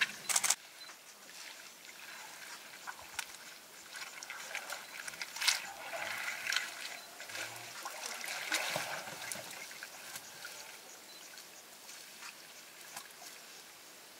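An African elephant working its trunk in a shallow muddy puddle, making irregular soft splashing and trickling with scattered small clicks. It is loudest between about four and ten seconds in and fades toward the end. A couple of sharp clicks come right at the start.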